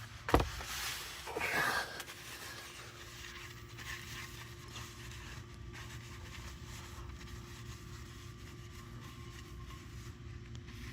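A sharp knock and about a second and a half of scraping as the oil pan drain plug is put back into the pan by hand, then a faint steady hum.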